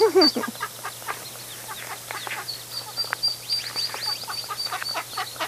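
Ducklings peeping: many short, high calls, each falling in pitch, running on without a break. A louder, lower call with a falling pitch comes right at the start.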